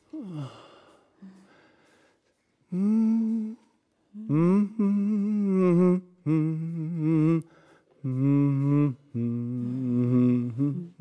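A person humming a slow, unaccompanied tune in several long held notes with vibrato, with short breaks between phrases.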